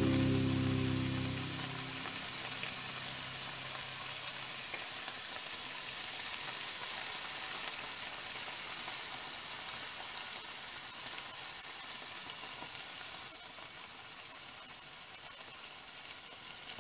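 Diced chicken breast and sliced onion sizzling in hot oil in a frying pan, a steady sizzle that slowly grows quieter, with a few faint clicks.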